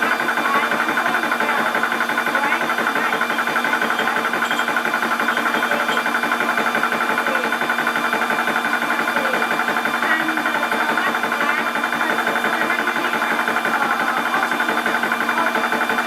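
Portable 12 V high-pressure PCP air compressor running steadily while filling a 0.25-litre air tank, an even mechanical hum with a fixed pitch and no change in speed.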